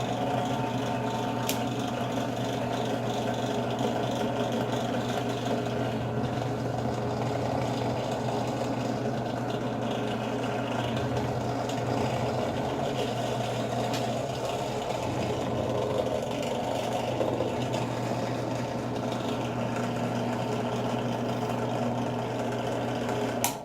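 Harbor Freight 8-inch five-speed bench drill press running unloaded on its first test run, set at about 1,630 RPM: a steady motor hum with the whir of belt and spindle. The sound cuts off suddenly near the end.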